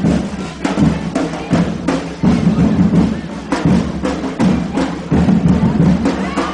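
Drums beating a steady rhythm, about three strokes a second, over a constant murmur of a crowd.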